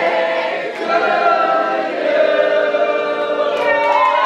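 A roomful of people singing together in unison, holding long notes.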